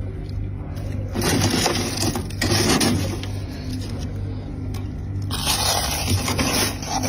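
Chunks of freezer frost being bitten and chewed, crunching and squeaking in two spells, the first about a second in and the second from just past the middle to the end, over a steady low hum.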